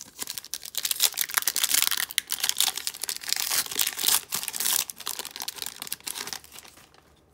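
Foil wrapper of a hockey card pack crinkling and tearing as it is opened by hand, a dense crackle that dies away about six and a half seconds in.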